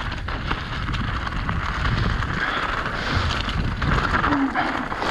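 Mountain bike descending a loose gravel trail: tyres crunching over stones and the bike clattering over rough ground in many small knocks, with wind rumbling on the microphone.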